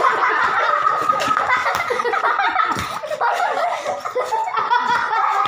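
Several children laughing and giggling excitedly, high-pitched and continuous.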